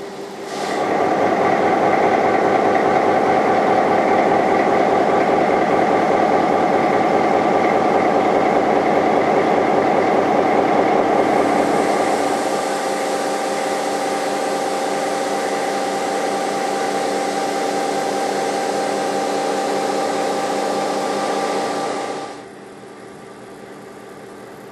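Diesel locomotive engine idling, a steady drone with several constant tones. It starts abruptly under a second in, turns thinner and hissier about halfway through, and cuts off about 22 seconds in, leaving a steady hiss.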